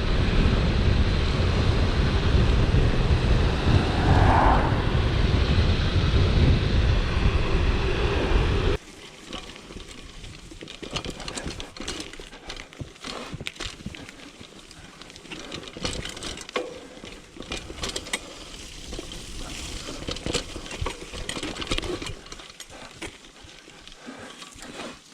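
Wind buffeting the action camera's microphone, with tyre noise, as a mountain bike rolls fast; it cuts off suddenly about nine seconds in. After that, quieter rolling, with many small clicks and knocks from the bike over the trail.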